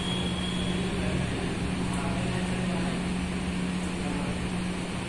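Steady low hum over even background noise.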